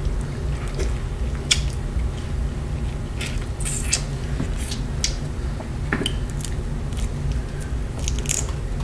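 Close-up mukbang eating sounds: irregular wet clicks and crackles from a boiled shrimp being handled, peeled and chewed, over a steady low hum.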